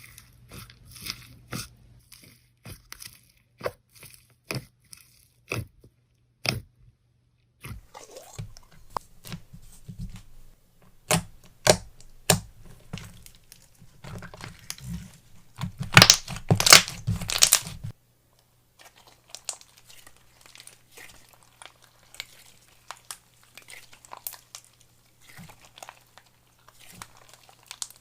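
Slime being squished, stretched and poked by hand, giving a run of crisp pops and crackly clicks. The clicks grow thickest and loudest a little past halfway, then stop briefly and go on more softly.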